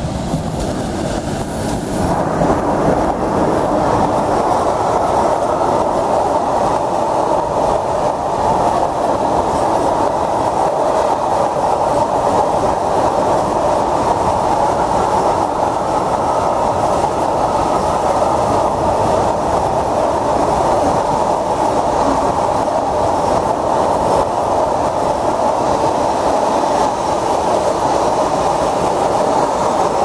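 Freight train wagons, open Eas wagons and then flat wagons, rolling past close by: a steady rolling rumble of steel wheels on the rails. It gets louder about two seconds in.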